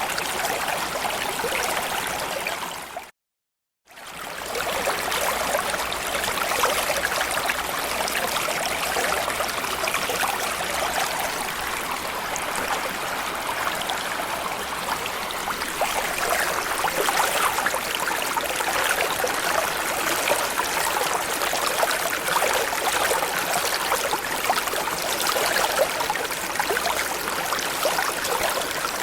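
Small stream or creek flowing steadily over stones, a continuous babbling rush of water. About three seconds in it cuts out to silence for under a second, then resumes.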